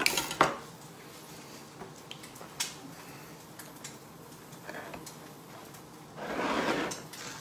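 A hot gratin dish handled with a cotton tea towel: a knock as the dish is set down on the wooden board just after the start, a light click a couple of seconds later, and a soft rustling whoosh near the end.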